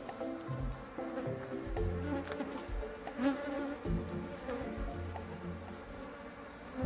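Honeybees buzzing around their hives, many overlapping hums that shift in pitch as bees fly past, with one louder buzz about three seconds in.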